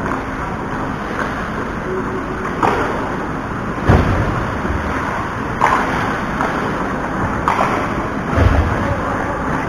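Ice hockey play on a rink: a steady rushing noise broken by about five sharp knocks or scrapes, two of them with a heavy low thud.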